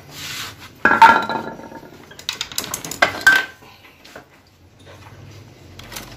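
Metal tools and parts clattering and clinking as they are handled, loudest about a second in, then a quick run of sharp clinks with a brief ring around three seconds in.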